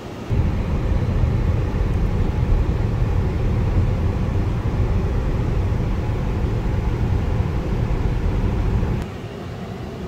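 Steady low road and tyre rumble with wind noise inside a Ford Mustang Mach-E cruising at highway speed, about 67 mph, the climate fans running on max AC underneath. About a second before the end it drops to a quieter cabin hum.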